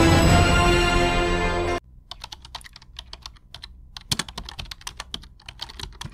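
News-intro theme music that cuts off abruptly about two seconds in, followed by a quieter run of rapid, irregular keyboard-typing clicks.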